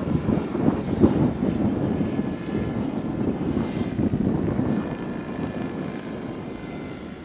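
Outdoor rumble of wind buffeting the microphone: a loud, uneven low noise that eases slightly toward the end.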